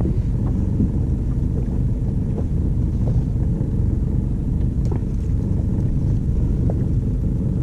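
Steady low rumble aboard a small fishing boat at sea, with a few faint clicks.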